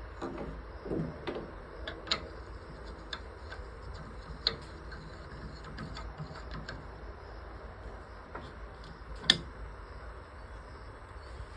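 Scattered light clicks and taps of small hard objects being handled, with a few dull knocks near the start and one sharper click about nine seconds in, over a low steady hum.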